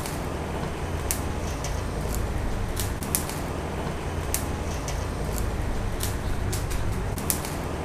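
A stockpot of fish maw boiling on a stove, stirred with a ladle: a steady low rumble with scattered sharp clicks and pops.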